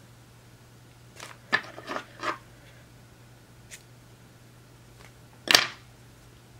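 Short rustles and clicks of fingers handling a pinch of synthetic wing fibre: a quick cluster a little after a second in, and one sharper, louder click near the end, over a faint steady hum.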